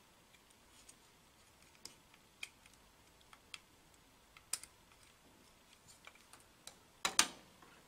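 Faint, scattered light clicks and taps of multimeter test-lead probes and clips being handled on a plastic test-point breakout board, with a brief louder rustle near the end.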